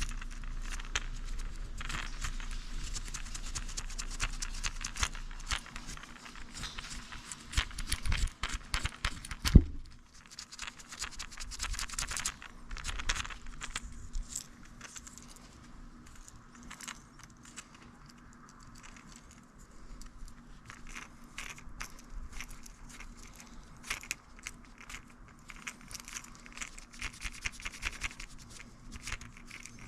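Close handling noise: scraping, tearing and crinkling with many small clicks, busiest over the first dozen seconds, and one sharp knock about nine and a half seconds in; then sparser clicks and rustles.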